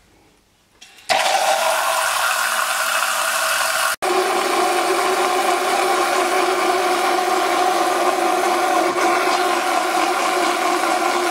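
ProMix battery-powered vortex mixer bottle's motor switching on about a second in and whirring steadily as its blade spins, churning powder into water. There is a brief break about four seconds in.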